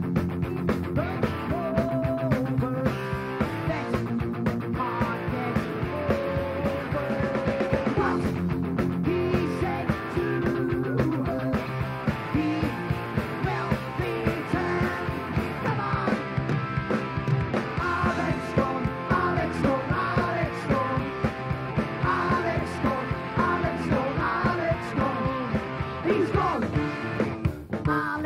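Live rock band playing: drums keeping a steady driving beat under electric bass, with a voice singing.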